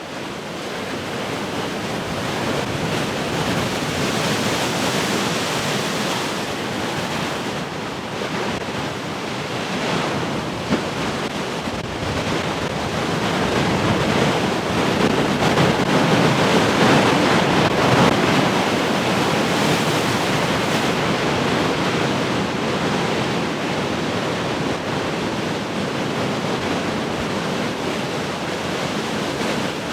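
Large ocean waves breaking in heavy surf, a continuous rushing wash that swells louder about halfway through.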